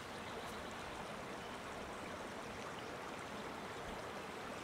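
Small mountain stream flowing, a faint, steady rush of water.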